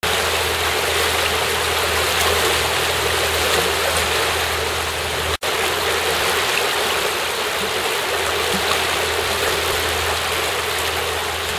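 Steady rush of river water flowing over a shallow riffle. It cuts out for an instant about five seconds in.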